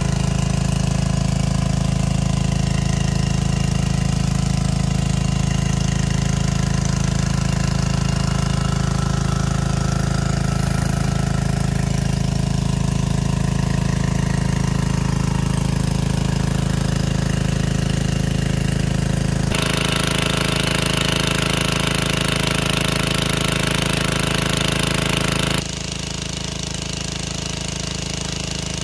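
Small engine-driven water pump running steadily at an even speed, with a broad hiss laid over it for about six seconds in the second half.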